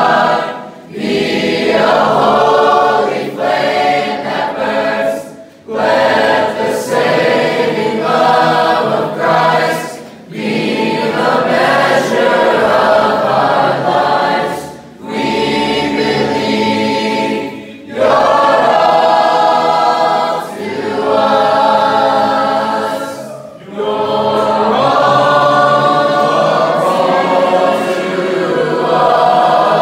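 A group of voices singing a worship song together, in phrases a few seconds long with brief breath pauses between them.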